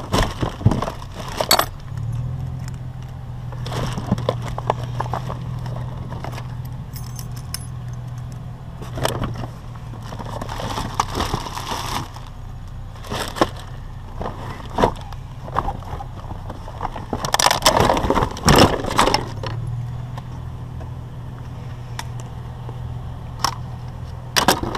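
Small pieces of metal scrap, keys and trophy parts, clinking and clattering as they are handled and sorted by hand, with a loud burst of clatter about three quarters of the way through. A steady low hum runs underneath, dropping out briefly just before the burst ends.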